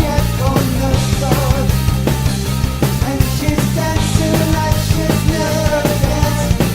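A rock band playing a cover of an 80s dance tune with metal-style guitar, bass and steady drum hits, in a sound-check recording.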